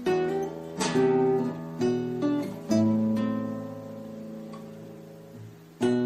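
Calm acoustic guitar music: a run of plucked notes and strummed chords in the first few seconds, then a chord left ringing and slowly fading, with a fresh strum just before the end.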